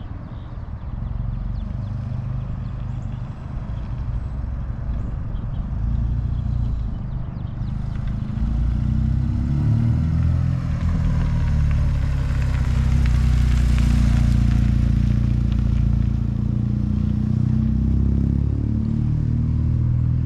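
BMW R1200RT's boxer twin engine running as the motorcycle approaches, growing steadily louder and loudest about two-thirds of the way through, with a hiss of tyres and air as it comes close.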